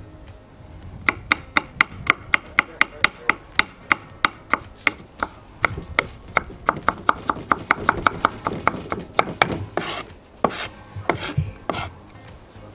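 Chef's knife finely chopping young garlic on a wooden cutting board: a fast, even run of knife taps on the board, about four a second, starting about a second in. Near the end come a few longer scraping strokes of the blade.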